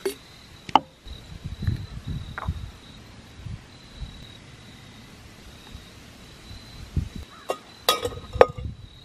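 Crickets chirping steadily in a high, even tone, with a few sharp metallic clinks as a stainless steel camping pot and a small gas canister stove are handled, the loudest about a second in and near the end.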